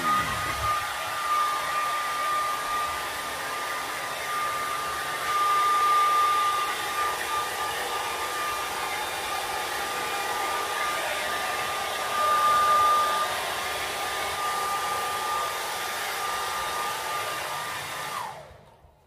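Handheld hair dryer running steadily, drying a wet dog's coat after a bath: a rush of air with a steady high whine. It is switched off near the end and the whine drops away as the motor stops.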